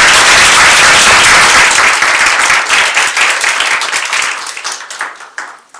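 A small audience applauding, loudest over the first couple of seconds, then thinning out and dying away near the end.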